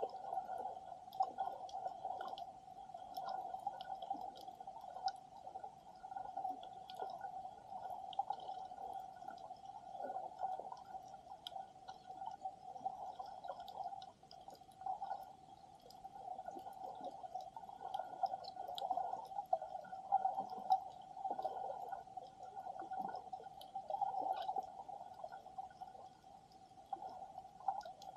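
Underwater sound picked up by a submerged camera on a shallow reef: a steady hum runs throughout, with uneven swishing of moving water and a faint, scattered crackle of tiny clicks.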